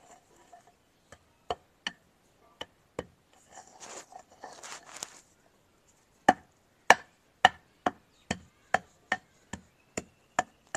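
Sharp wooden knocks of a stick striking bricks set in the soil, a few scattered at first, then steady at about two a second from about six seconds in. A short rustling scrape comes about four seconds in.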